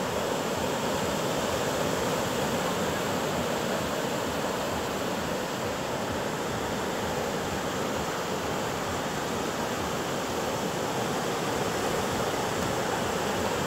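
Sea surf washing up a sandy beach: a steady rushing noise.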